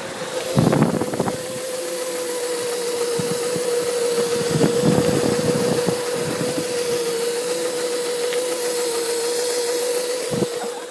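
Bladez 250 W electric scooter motor driving the rear wheel of a converted mountainboard under way: a steady whine holding one pitch over road and wind noise. Heavier rumbles come about half a second in and again around five seconds in.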